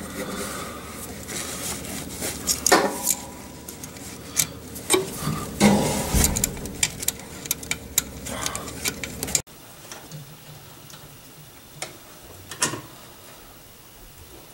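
Scattered small metallic clicks and taps of hand work on brake plumbing, as a brake line's tube nut is fitted into the brass reducer fitting on the master cylinder. About nine seconds in the sound drops off suddenly to a quiet background with a few faint clicks.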